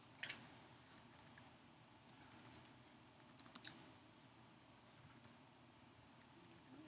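Faint, irregular keystrokes on a computer keyboard as a web address is typed, a few quick taps at a time with pauses between.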